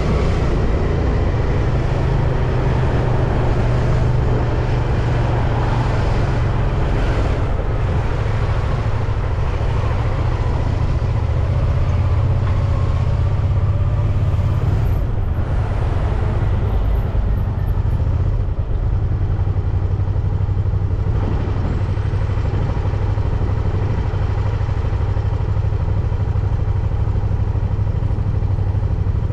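Steady low rumble of wind on the microphone while cycling along a road, with motor traffic passing.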